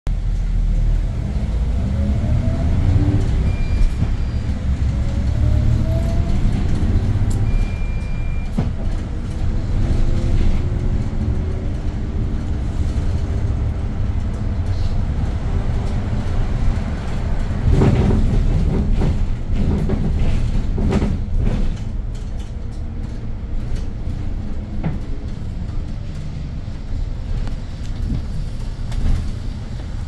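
Hyundai New Super Aerocity city bus driving, heard from inside, its C6AF CNG engine running with a heavy low rumble. The engine pitch rises twice in the first seven seconds as the bus gathers speed, then settles into a steadier drone. There are two short high beeps early on, and a few knocks and rattles around 18 and 21 seconds in.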